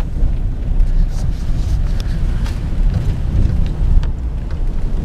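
Engine and tyre noise heard inside a vehicle's cab while it drives along a snow-packed track: a steady low rumble with a few faint knocks.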